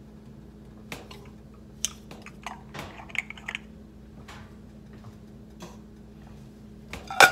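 Light clicks and knocks from handling a plastic food-processor bowl, then near the end a quick run of loud clattering knocks as minced mushroom-and-garlic paste is knocked out of the bowl into a nonstick skillet.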